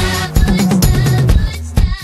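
Pop song with a drum kit beat over a bass line. Near the end the music thins out to mostly separate drum hits.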